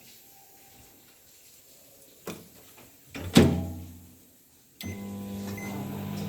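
A click, then a loud clunk about three seconds in, and near the end a microwave oven starts running with a sudden steady hum.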